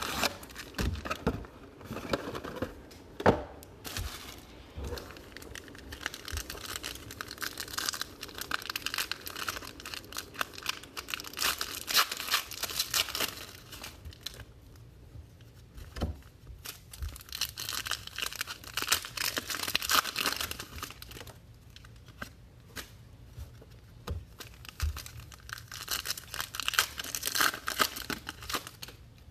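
Plastic wrapping on trading card boxes being torn and crumpled: crinkling and crackling in several stretches, with sharp clicks and short quieter pauses between them.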